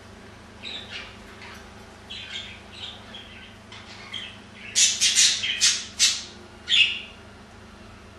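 Budgerigars calling: scattered short chirps, then a run of about six loud, harsh squawks in the second half.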